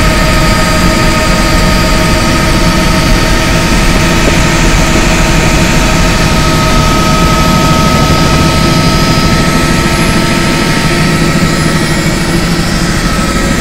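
Helicopter cabin noise during flight: a loud, steady engine and rotor drone with a fast low flutter and a constant high whine over it.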